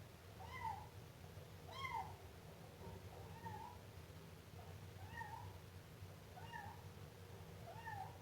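Siamese kitten meowing repeatedly: about six short, rising-and-falling meows, roughly one every second and a half, the second one the loudest, over a faint low hum.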